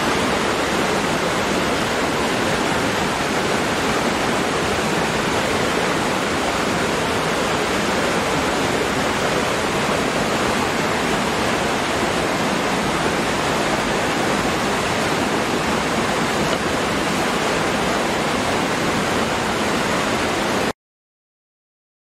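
Waterfall: a steady, loud rush of falling water that cuts off suddenly about a second before the end.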